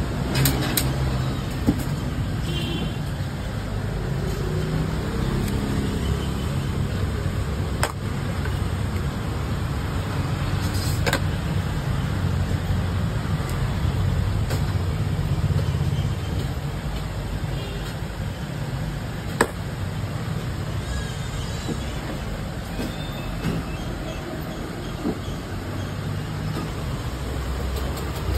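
Steady low rumble of street traffic, with a few sharp knocks scattered through it.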